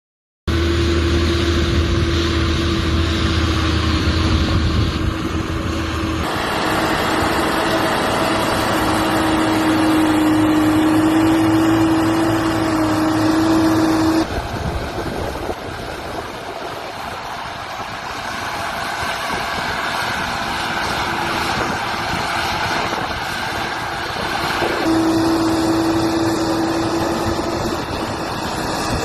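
Fiatagri 180-90 tractor's six-cylinder turbo diesel engine running under load while pulling a five-furrow plough, with a steady whine over the engine note. The sound changes abruptly a few times, at what look like cuts between takes.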